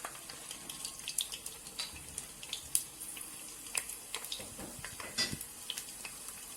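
Chopped onions frying in hot palm oil: a steady sizzle with scattered crackles and pops.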